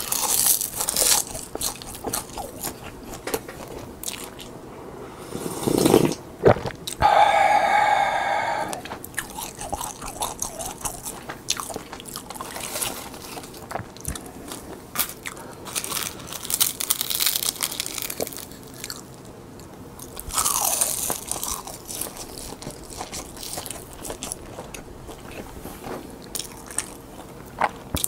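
Crisp seasoned laver (gim) sheets being bitten and chewed close to the microphone, with repeated crackling crunches. About seven seconds in, a steady pitched tone lasts roughly two seconds.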